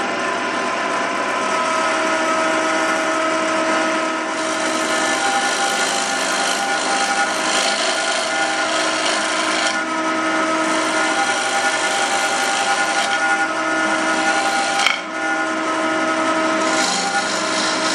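Wood lathe running while a gouge cuts into the face of a spinning wooden disc, shaving off wood; a steady motor hum under cutting noise that grows and fades as the tool is pushed in. A single sharp click about fifteen seconds in.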